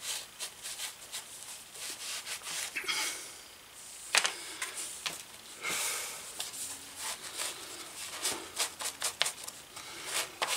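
Microfiber cloth rubbing and wiping over small holster parts: a run of short, irregular scuffing and rustling strokes, with one sharp click about four seconds in.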